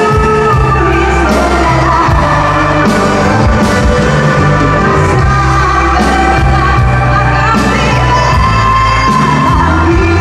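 Live band of electric guitars, bass guitar and drum kit playing a pop-rock song, loud and steady, with a woman singing the lead vocal over it in long held notes.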